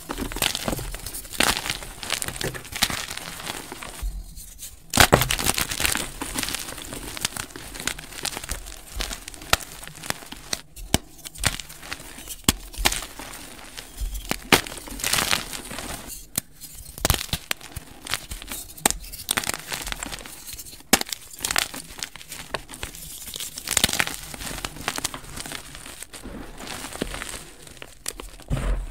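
Blocks of dyed gym chalk crumbled and crushed by hand: an irregular dry crunching and crackling as the chalk breaks apart, with a sharp, loud crack about five seconds in.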